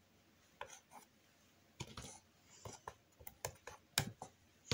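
A palette knife working acrylic paint on the painting: irregular light taps and short scrapes, with a sharper tap about four seconds in.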